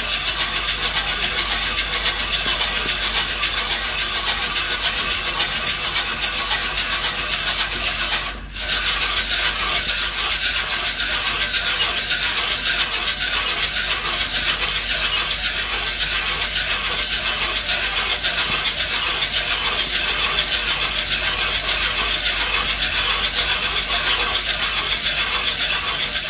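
Green coffee beans tumbling and rasping inside a hand-cranked mesh drum roaster turned over a portable gas burner, a steady churning with an even pulse of about two a second from the cranking, over a constant hiss. The sound drops out for a moment about eight seconds in.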